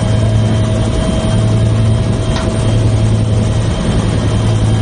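Helicopter engine and rotor noise heard inside the cabin with the side door open while hovering: a loud steady drone with a steady thin whine above it, and a single brief click about two and a half seconds in.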